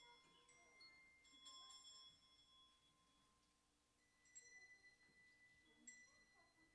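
Handbells rung faintly one at a time, a handful of separate strikes, each tone ringing on for a second or more, as the children are handed their bells.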